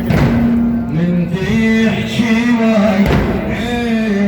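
A man's voice chanting a slow melody in long, wavering held notes, in the style of a mulla's religious recitation, with a thump near the start and another about three seconds in.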